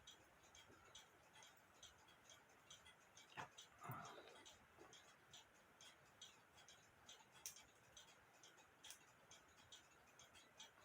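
Near silence with faint handling of a cuckoo clock's movement: many small ticks and clicks, with two light knocks about a third of the way in, as wheel pivots are worked into the plate holes.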